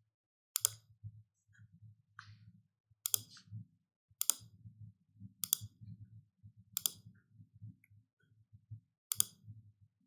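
Computer mouse clicks: about six sharp single clicks, spaced a second or more apart.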